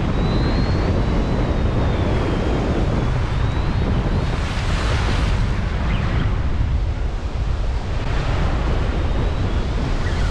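Wind buffeting the microphone over surf washing against sea rocks, with louder rushes of breaking water about halfway through and again near the end. A faint, wavering high whistle runs through the first few seconds.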